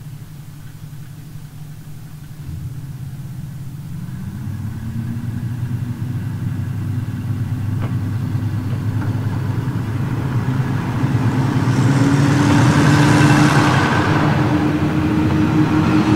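KiHa 28 and KiHa 52 diesel railcars' DMH17 engines pulling away from a station. The diesel drone steps up about two seconds in, then climbs slowly in pitch and grows louder as the train accelerates. Wheel and rail noise swells near the end as the cars pass close by.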